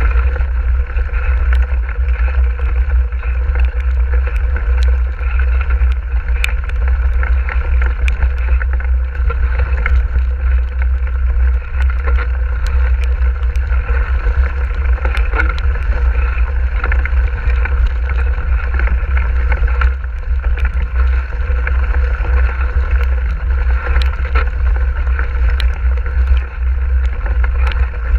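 Mountain bike rolling fast over a wet, stony gravel track: a loud, steady low rumble of wind and vibration on the action camera's microphone, with the crunch of tyres on gravel and frequent small rattling clicks throughout.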